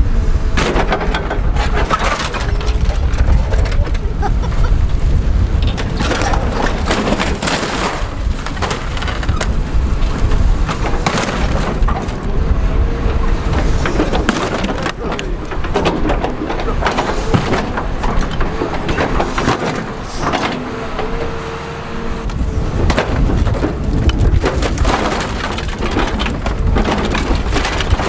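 Heavy engine running under load while a Geo Metro is crushed: repeated crunching and breaking impacts of the car body over a steady low rumble.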